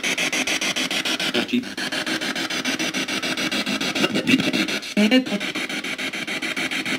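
P-SB7 Spirit Box sweeping the FM band through a loudspeaker: a steady hiss of radio static chopped about ten times a second as it jumps station to station, with brief snatches of broadcast sound caught here and there.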